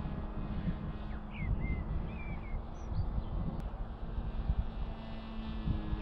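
Zeta FX79 Buffalo RC flying wing's brushless motor and 12x6 propeller droning at a distance with a steady hum that rises in pitch near the end, under wind buffeting the microphone. A few short bird chirps come about a second and a half in.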